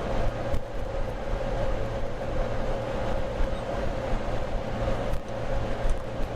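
Steady mechanical hum, with a couple of faint clicks.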